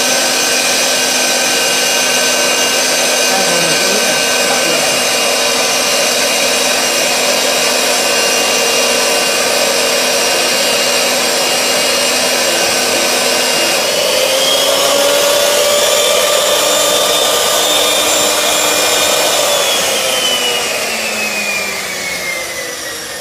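Asada Pro 25 bolt-threading machine running, its die head turning on a round steel bar with cutting oil: a steady mechanical whine over a hiss. About two-thirds through, the pitch steps up a little; near the end the pitch falls and the sound fades as the machine slows down.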